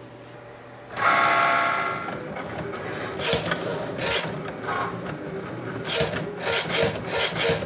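Cricut Maker cutting machine starting a cut with its rotary blade. About a second in a brief motor whine, then the carriage drags the rotating blade through bonded cotton fabric. This ends in a quick, regular series of strokes, about three a second.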